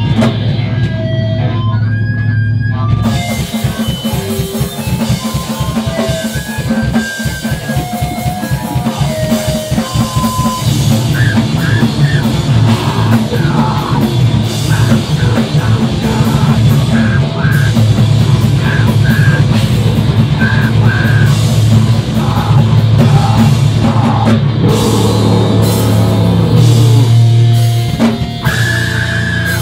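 Screamo band playing live: distorted electric guitar and bass over a low droning opening, then drums come in about three seconds in with rapid, dense drumming and crashing cymbals.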